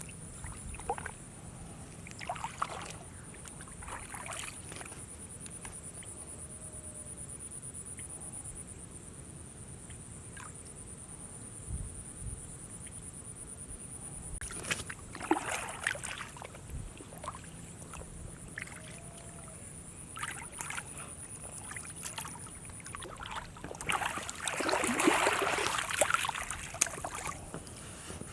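Water splashing and sloshing in short bursts, with the longest and loudest spell near the end.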